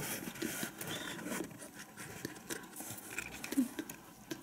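Fingers brushing and rubbing plant leaves, a scattered soft rustling and scratching close to the microphone.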